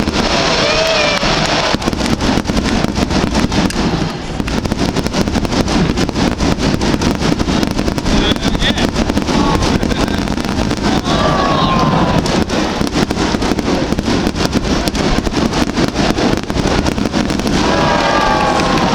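Fireworks display going off in rapid, continuous bangs and crackles, with a few brief voices rising over it now and then.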